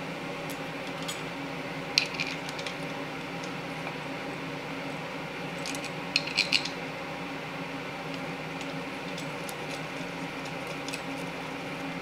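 Light metallic clinks of a steel timing chain and camshaft gear being handled and fitted by hand: a single clink about two seconds in and a quick cluster of three or four around the middle, over a steady background hum.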